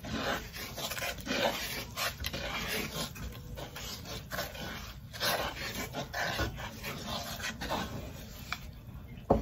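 Wooden spatula stirring and scraping a thick flour-and-water batter around a non-stick frying pan in quick, irregular strokes. The pan is still unheated, so there is no sizzle.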